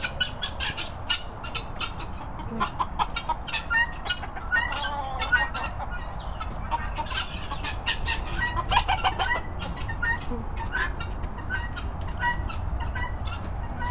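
A flock of poultry clucking and calling, many short calls overlapping in a dense, continuous chatter, over a low rumble on the microphone.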